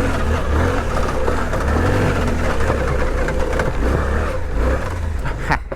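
Suzuki V-Strom 800DE's parallel-twin engine pulling under throttle as the bike climbs a loose quarry hill, with a brief sharp knock near the end.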